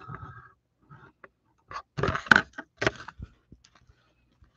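Handling noise as a hardback picture book is shifted about in the hands: scattered clicks and rustles, with a cluster of louder knocks and scrapes about two to three seconds in.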